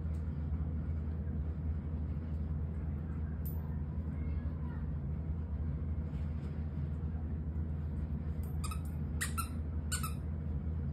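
Squeaker in a plush pumpkin dog toy squeaking as a borzoi bites it: a quick run of about four short squeaks near the end, over a steady low hum.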